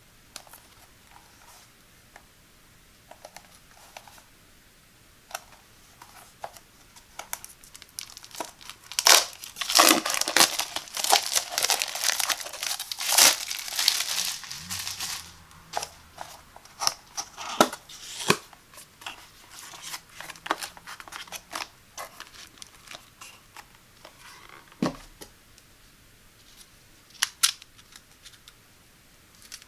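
Plastic shrink wrap on a cardboard box being torn open and crumpled, with dense, loud crinkling for several seconds in the middle. Before and after it come light taps and clicks of fingers handling the box and then the plastic filter parts.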